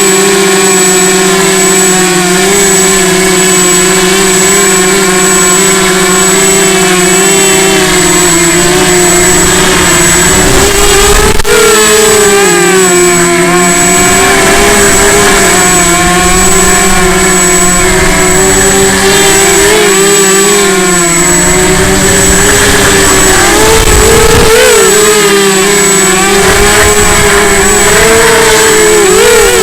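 FPV quadcopter's brushless motors whining steadily, the pitch wavering up and down with the throttle and rising briefly in a few spots, with a brief click about eleven seconds in.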